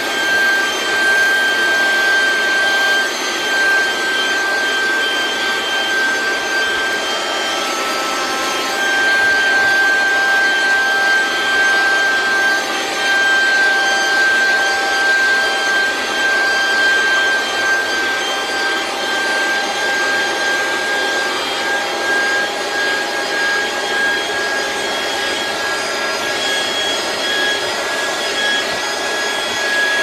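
SehenTools 12 V 60 W handheld car vacuum cleaner running steadily with a high motor whine while its nozzle is worked over a car boot mat, sucking up dust and grit.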